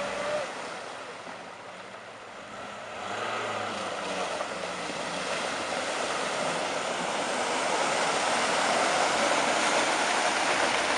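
Lada Niva 4x4 driving through a shallow river, water splashing and churning around its wheels over the engine running underneath. The splashing grows louder from about three seconds in as the vehicle comes closer.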